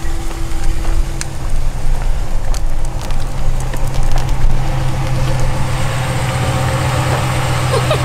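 Dodge Ram 1500 pickup's engine idling, a steady low hum that grows stronger in the second half. Light clicks from the stroller wheels rolling over the asphalt sound over it.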